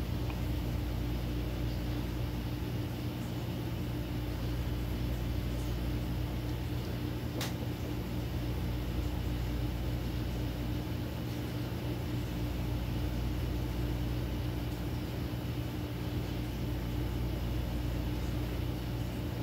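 Steady electric hum of a motorized display turntable's motor as it turns, with one brief click about seven seconds in.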